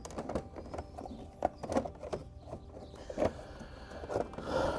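Irregular clicks and knocks of hard plastic as the Honda GL1500 Gold Wing's old fairing panels are handled and worked loose at their tabs.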